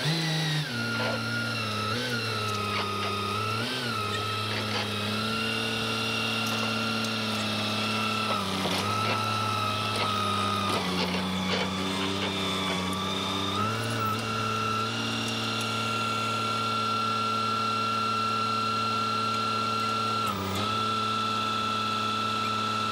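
Electric power tool motor running with a steady whine. Its pitch sags briefly several times as it is pressed into the work, then holds level near the end.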